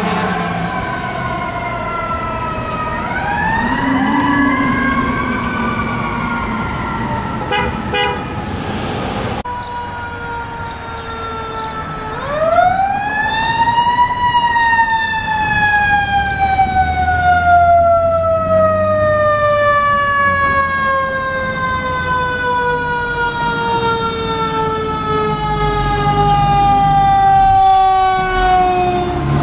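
Fire apparatus sirens on an emergency response. For the first nine seconds a siren falls in pitch, with a short rise about three seconds in. Then a 1999 Sutphen tower ladder's siren winds up sharply about twelve seconds in and falls slowly in pitch over the rest, with the truck's engine running underneath near the end.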